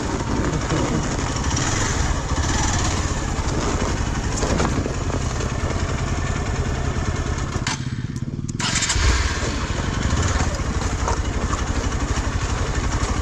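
Single-cylinder Hero XPulse 200 motorcycle engine running at low speed as it climbs a rocky dirt trail. Near the middle, the higher part of the sound drops away for about a second, leaving only the low engine note.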